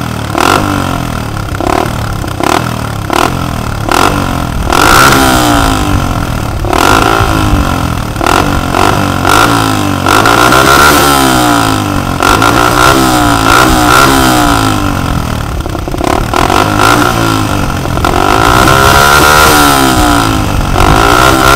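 Suzuki DR-Z125L's single-cylinder four-stroke engine, breathing through a Yoshimura Alpha slip-on exhaust, revved repeatedly while standing still. The pitch climbs and falls again over and over, quick blips alternating with longer sweeps, with short sharp clicks between some blips in the first half.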